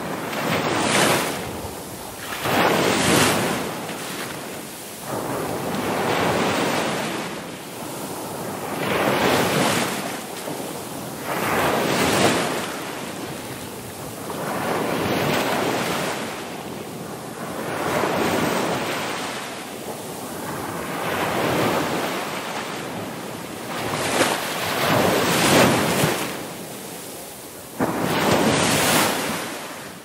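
Ocean surf: waves breaking and washing in one after another, a rushing swell every two to three seconds.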